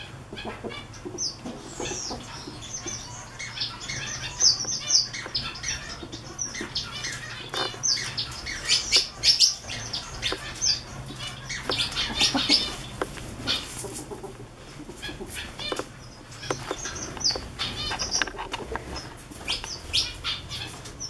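Ferret and cat wrestling on a fleece blanket: irregular rustling, scuffling and quick scrabbling of fur and paws on the fabric, busiest in the middle of the stretch.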